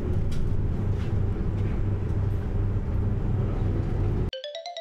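Running noise of a city bus heard from inside the cabin: a steady low engine-and-road rumble. It cuts off suddenly about four seconds in, replaced by a quick rising run of chime-like notes.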